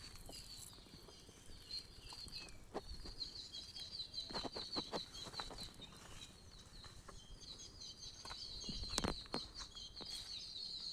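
Bird chirping in long runs of rapid, high-pitched notes at a steady pitch, with a few scattered knocks or taps.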